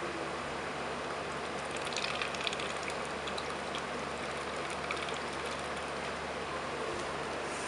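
Duckling dabbling, dipping its bill into a bowl of water and wet rice: small wet slurps, splashes and bill clicks, in clusters about two seconds in and again around five seconds, over a steady hiss.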